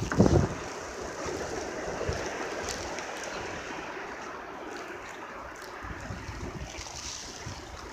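Strong blizzard wind gust rushing steadily, with wind buffeting the microphone in the first half-second.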